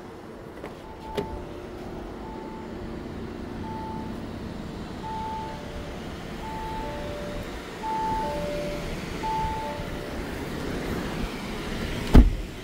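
A car's warning chime dings at an even pace, about once every 1.4 seconds. It starts on a single pitch and then alternates with a lower tone, over a steady hum. A car door shuts with a heavy thud near the end.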